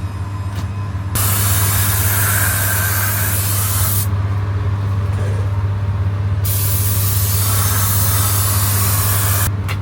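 Air spray gun hissing in two long, even passes, spraying lacquer over a freshly painted alloy wheel repair. A steady low hum runs underneath.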